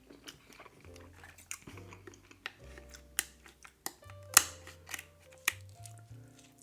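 Seafood-boil eating sounds: sharp clicks and cracks of shells being handled and bitten, with chewing, the loudest cracks about three, four and a half and five and a half seconds in. Background music with a steady low bass line runs underneath.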